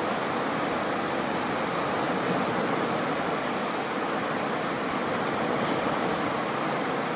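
Small ocean waves washing onto a beach: a steady, even wash of surf with no single breaking wave standing out.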